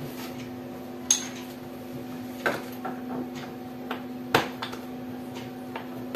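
A few separate sharp clicks and light knocks of a plastic laptop being handled on a work surface as its disassembly begins, over a steady low hum.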